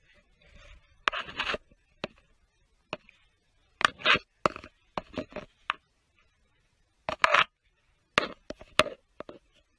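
A metal tool scraping and clicking against the injector bore in the cylinder head of a Toyota 2.0 D-4D diesel, in short irregular strokes, working deposits off around the injector seat.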